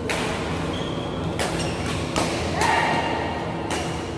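Badminton rackets striking a shuttlecock during a rally: four sharp cracks at uneven intervals.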